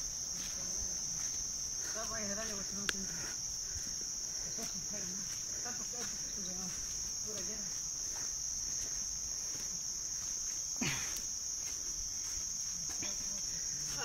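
Insects droning steadily at a high pitch, with faint distant voices, a single sharp click about three seconds in and a brief falling tone about eleven seconds in.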